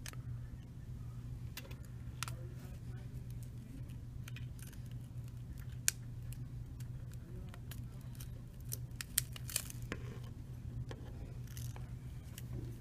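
Plastic prying tool scraping and clicking around the edge of an LG Optimus L90 phone as the heated screen assembly is pried off the frame. The clicks and scrapes are small and irregular, with a sharper snap about six seconds in and a few more near the end, over a steady low hum.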